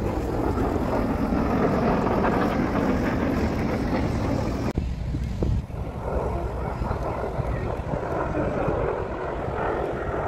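Jet aircraft engine noise from planes flying overhead, a steady rumble with wind buffeting the microphone. About five seconds in it cuts abruptly to a large four-engine military transport jet passing overhead.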